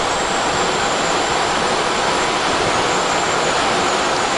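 Boeing 777-200's auxiliary power unit, a small gas turbine, running steadily at full speed and supplying the aircraft's power: an even rushing whoosh with a faint high whine, heard inside the cockpit.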